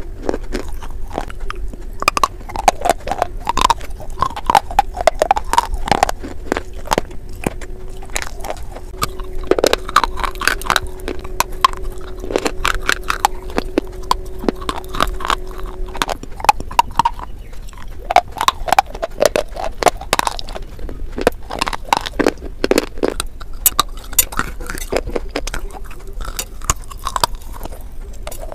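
Close-miked crunching and chewing of a dry, chalky edible clay bar: dense, sharp, crackling snaps as it is bitten and ground between the teeth, with wet mouth sounds between them. A faint steady hum runs through the first half and then stops.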